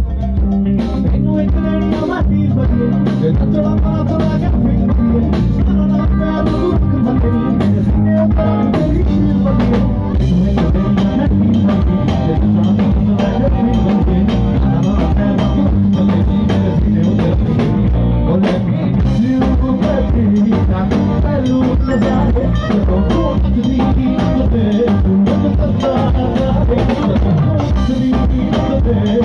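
Live Punjabi pop song played loud through a concert sound system: a band with a steady drum beat under a male singer singing into a microphone.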